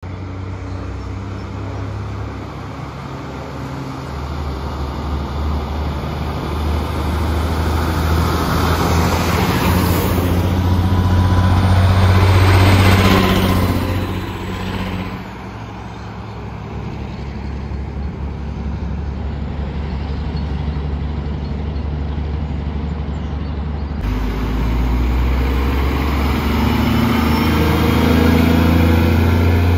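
Heavy diesel trucks going by on a street. A tri-axle dump truck's engine builds up and passes about halfway through. After a cut, a semi tractor pulling a flatbed accelerates through an intersection, its engine note climbing near the end.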